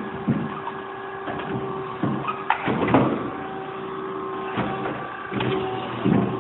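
Steady machinery hum with a constant tone, broken by irregular clanks and knocks about every second or so.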